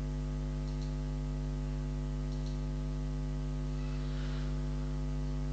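Steady electrical mains hum, a low buzz with a stack of even overtones, running unchanged. A couple of faint ticks sound about a second and two and a half seconds in.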